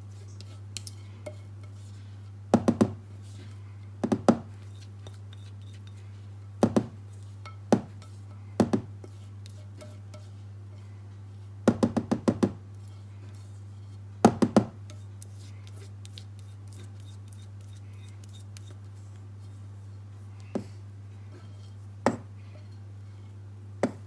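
Irregular clusters of sharp knocks and clicks from kitchen items being handled, some clusters two to four hits fast, over a steady low hum.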